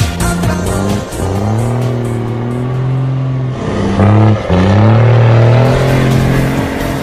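Diesel engine of a loaded Volkswagen Constellation truck pulling steadily as it drives past, the revs dipping briefly about four seconds in and climbing again.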